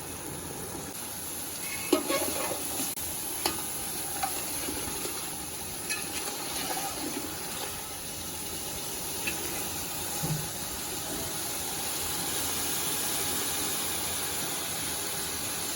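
Spiced chicken frying in a pot, a steady sizzle, as it is stirred with a spoon that knocks against the pot several times.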